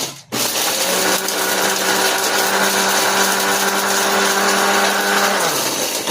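Electric kitchen blender running, grinding dry pet-bird feed pellets into smaller pieces, with a loud steady whir and motor hum. The sound cuts out briefly just after the start, and the hum drops in pitch near the end.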